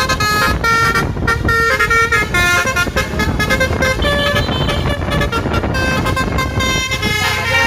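Bus 'telolet' Basuri multi-tone air horn playing a rapid melody of short changing notes, with a low rumble underneath.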